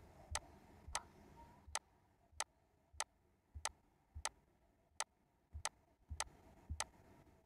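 Computer mouse clicking: about a dozen short, sharp clicks at an even pace of somewhat under two a second.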